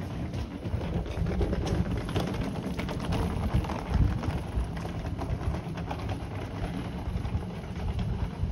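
Outdoor street ambience: a steady low rumble with scattered light clicks and taps.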